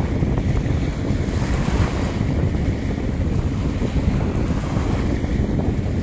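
Wind buffeting the microphone, the loudest sound, over small waves lapping and washing up on a sandy beach.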